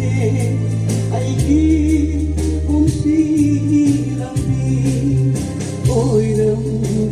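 A song with a singing voice over long held bass notes and a steady beat.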